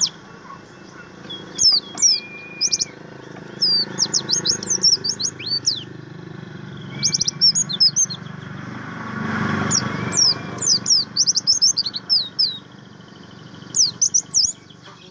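A caged white-eye (pleci) singing: quick runs of high, sweeping chirps and twitters with short pauses between them, and now and then a briefly held whistle. A short rush of noise comes in about two-thirds of the way through.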